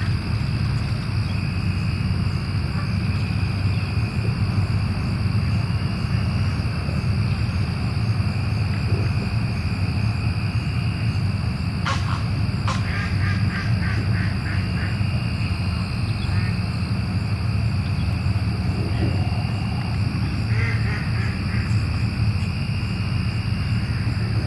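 Birds calling on the lake, with two short runs of quick repeated calls, one about halfway through and one near the end. Under them runs a steady low rumble and a constant high insect-like drone.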